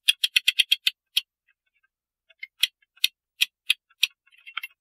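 Ratchet and click of a clock mainspring winder clicking as its crank is turned to wind a rivet-end mainspring. A fast run of about nine clicks comes in the first second, then single clicks come about every half second later on.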